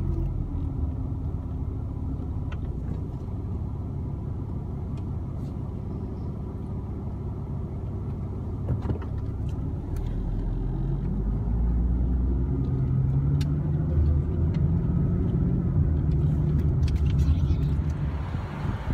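Car engine and road noise heard from inside the cabin while driving: a steady low rumble, with the engine note rising about halfway through.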